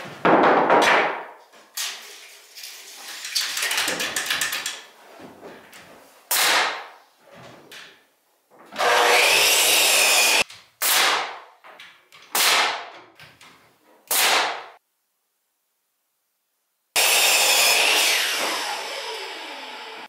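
Power saw cutting freshly milled pine 2x3 framing lumber: a few long cuts and several short bursts. After the last cut the blade's whine falls in pitch as it spins down.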